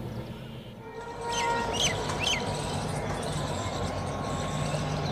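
A bird calls three times in quick chirps between about one and two and a half seconds in, over steady outdoor background noise with a faint low hum. The first second is a low train rumble dying away.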